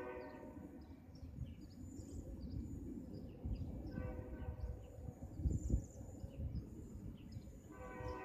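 Union Pacific locomotive air horn sounding long blasts: one cuts off at the start, a second long blast about four seconds in lasting nearly four seconds, and another begins near the end, over a low rumble.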